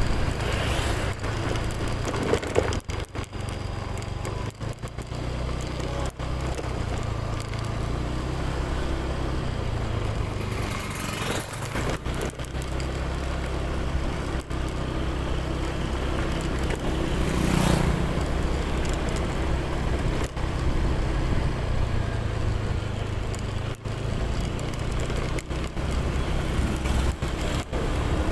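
A motor vehicle engine running steadily, with vehicles passing about 11 and 17 seconds in.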